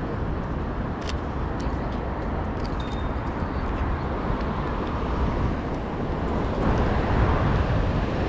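Steady outdoor city noise: a constant low rumble of road traffic and wind, with a few faint clicks in the first few seconds. The rumble grows louder about two-thirds of the way through.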